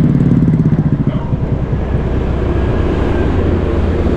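Vehicle engine running at road speed along a highway, a steady low hum under even road and wind noise.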